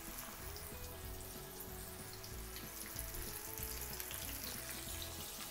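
Hot oil sizzling and bubbling steadily around floured chicken drumettes frying in a pan, as more floured pieces are lowered in.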